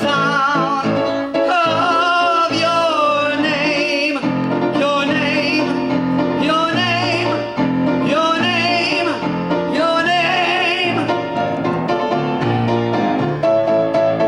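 A male singer holding long notes with wide vibrato over piano accompaniment, the closing phrases of a cabaret ballad.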